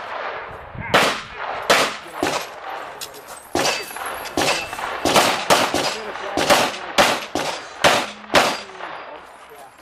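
Handgun fired about a dozen times at a fast, uneven pace, some shots in quick pairs, each followed by a short echo: a competitor engaging targets on a practical-shooting stage.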